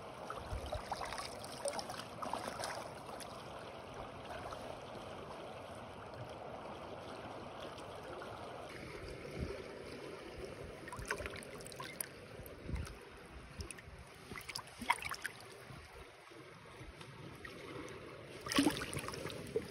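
Shallow river water flowing and lapping around the wader, with a few brief splashes and knocks as the trout is handled in the water, the loudest near the end.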